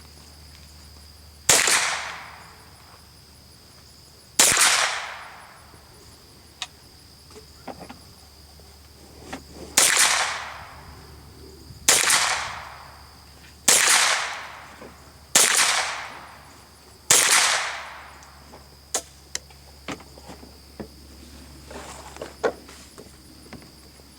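Seven single shots from a Henry US Survival Rifle (AR-7), a .22 LR semi-automatic, fired one at a time about two to five seconds apart. Each sharp crack trails off in a short echo. A steady high insect buzz runs underneath.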